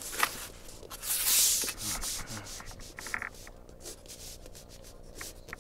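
Sketching on a sheet of drawing paper: a drawing tool and the hand scratching and rubbing across the paper in repeated strokes. The longest, loudest stroke comes about a second in, and there is a brief squeak about three seconds in.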